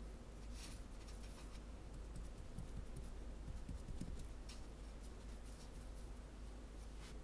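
Fingertips gently pressing and rubbing a soft, flour-dusted manju dough piece on a baking tray to round it off: faint, scattered soft rubbing and brushing sounds with a few light taps, over a steady low hum.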